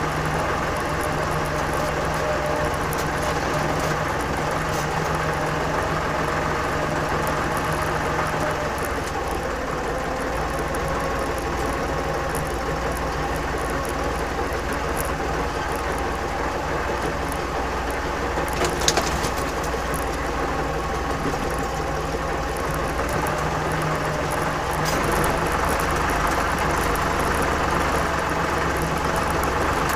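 Torpedo TD 55 tractor's air-cooled diesel engine running steadily as it drives through wet snow, with a single sharp knock about two-thirds of the way through. The engine gets a little louder near the end.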